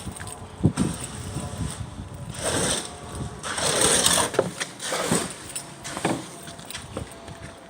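Concrete pour for fence piers: an engine runs steadily under two bursts of rushing, sliding noise, the second and louder about four seconds in, with scattered knocks.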